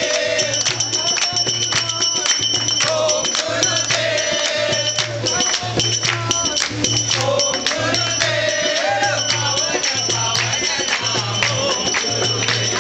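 Devotional group singing (kirtan) with jingling hand percussion and a steady low beat about once a second.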